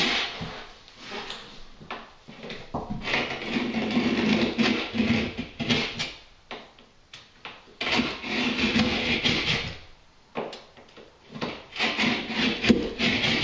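Stanley knife cutting through plasterboard in repeated scraping strokes, each lasting a second or more, with short pauses between them.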